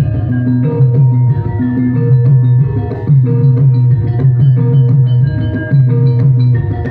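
Loud Javanese gamelan music for a jathilan (kuda lumping) horse dance, with drumming and struck metallophone notes over a deep note that repeats about once a second.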